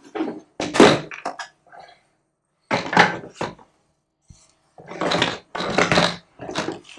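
Plastic base panel of a Neakasa M1 smart litter box being worked loose and lifted off by hand: plastic knocks and scrapes in three bursts, near the start, around three seconds in and again near the end.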